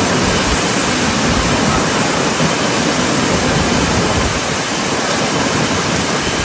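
Heavy rainstorm: a steady, loud rushing hiss of rain and wind with an uneven low rumble underneath.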